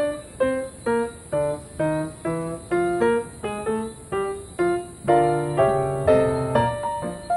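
Background piano music: a simple melody of single notes, about two a second, each fading after it is struck, with fuller chords about five seconds in.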